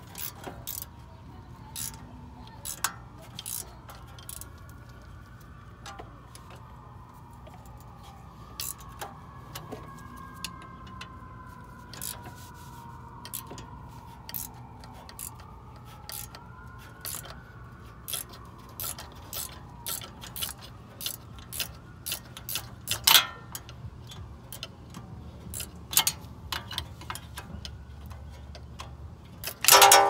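Hand tools on a rear brake caliper bolt: scattered metallic clicks and clinks of a wrench and pliers working the 13 mm bolt, irregular rather than a steady ratchet rhythm. A louder clink that rings briefly comes at the very end.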